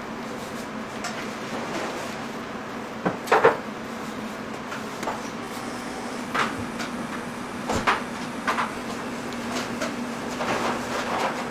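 Kitchen work sounds: a steady low hum under scattered knocks and clatters from handling, the loudest a quick pair about three and a half seconds in.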